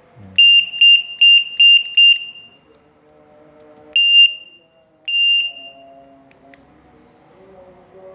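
Electronic horn of a West Biking bicycle light beeping with a piercing high tone: six quick beeps, then two longer beeps about a second apart.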